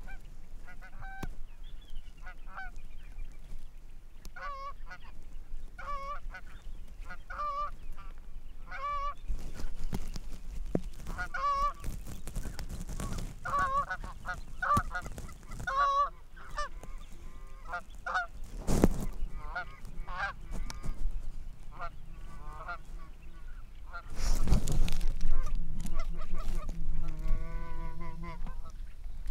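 Canada goose honks and clucks, repeated in short quick series, with a longer wavering call near the end. A sharp click about two-thirds through, and a brief rush of noise a few seconds later.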